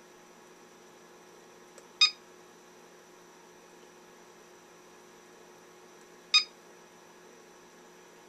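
Cellpro PowerLab 8 battery charger beeping twice, about four seconds apart, as its button is pressed to scroll through the display screens. A faint steady hum runs underneath.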